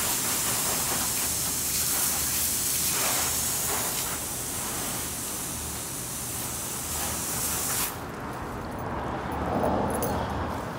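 Garden hose spray nozzle spraying water onto a car's body, a steady hiss that cuts off suddenly about eight seconds in, leaving quieter water splashing and running.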